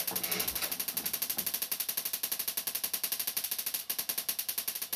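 Panasonic TX-32PD50 CRT television switched on and crackling in a rapid, even ticking, about ten ticks a second. The owner thinks a failed regulator circuit on the power supply board has let some voltages go too high.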